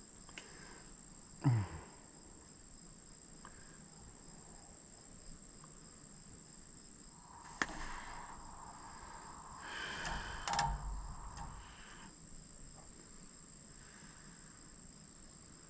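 Steady high-pitched insect drone of crickets in summer heat, with faint rustles and a couple of sharp clicks from hand work. Near the start there is a short sound that drops in pitch.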